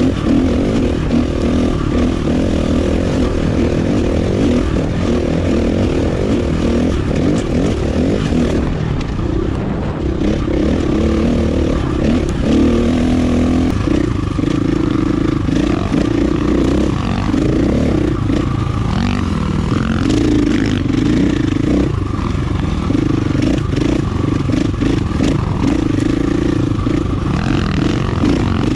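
Single-cylinder four-stroke engine of a 2019 KTM 450 EXC dirt bike, fitted with an aftermarket power kit, running under way while riding, its note rising and falling with the throttle. Rattles and clatter run throughout.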